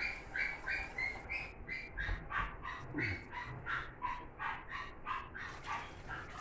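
A small dog yapping over and over in quick, high-pitched yaps, about three a second.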